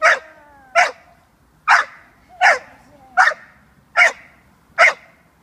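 American Staffordshire terrier puppy barking in sharp, evenly spaced barks, seven of them at about one every 0.8 seconds, as in protection-work barking.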